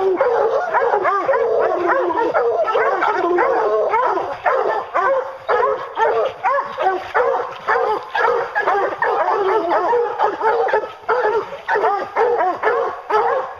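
A pack of bear hounds baying and barking at the foot of a tree, many voices overlapping continuously: the hounds' tree bark, the sign that the black bear is treed.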